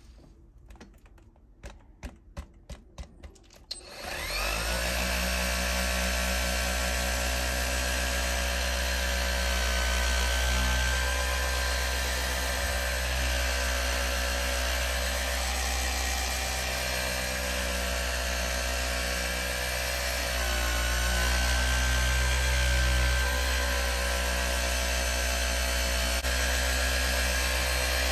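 A quick series of about eight clicks, then a motor starts about four seconds in and runs steadily with a low hum.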